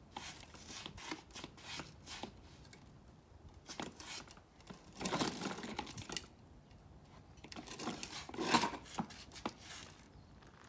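Plastic wheels of a toddler's ride-on toy car grinding and rattling over rough concrete as it is scooted along, louder about five seconds in and again near eight seconds.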